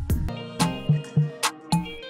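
Background music with a steady drum beat and short plucked notes.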